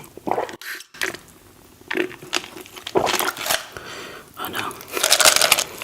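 Close-miked eating sounds: irregular bites and crunches, with a dense stretch of packaging crinkling near the end.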